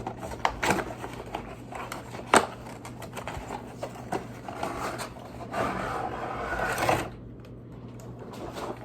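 Toy playset packaging and small plastic pieces being handled: scattered clicks and taps, one sharp click about two seconds in, then a stretch of rustling that stops about seven seconds in. A faint steady low hum sits underneath.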